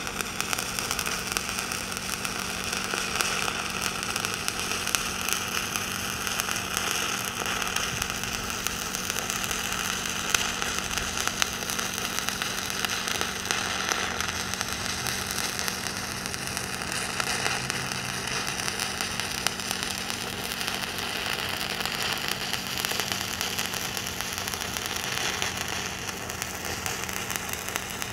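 Stick (SMAW) welding arc crackling steadily as a weave fill bead is run vertically up a bevelled test plate, with a steady low hum beneath it.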